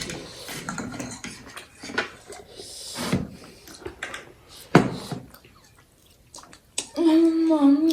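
Scattered eating sounds and the clink of dishes and cutlery during a noodle and momo meal, with a few short sharp noises. Near the end a child starts singing a held, wavering tune.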